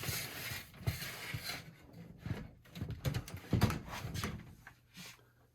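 Plastic box fan cabinets being handled and turned: irregular creaks, scrapes and knocks, the loudest a little over halfway through.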